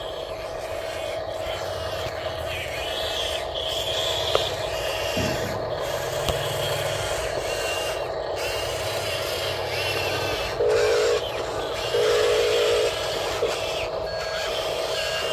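Hobby RC construction models running: a steady electric motor whine with some low rumble, and two short horn blasts from a toy sound module about two-thirds of the way in.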